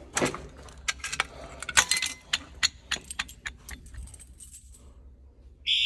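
Metal keys jangling and clinking in a run of quick irregular clicks, thinning out after about three seconds. Right at the end a fire alarm starts sounding, a loud steady tone.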